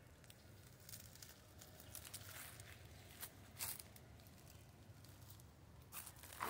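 Footsteps crunching and rustling in dry fallen leaves, a few faint, irregular crackles with a louder one near the end.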